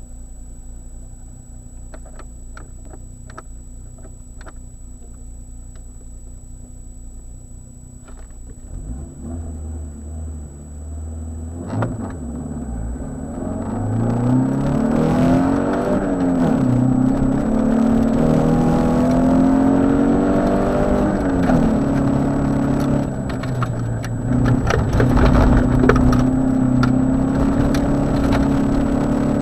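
Rally car engine idling at the start, heard from inside the cabin, then revved and launched about ten seconds in. It accelerates hard through the gears, its pitch climbing and dropping at each shift, with gravel noise from the tyres once it is under way.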